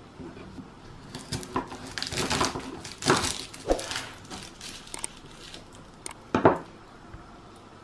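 Knife slicing through the top of a whole garlic bulb on a wooden cutting board, the papery skin crackling and the cloves crunching for a few seconds; a sharp knock comes a couple of seconds later.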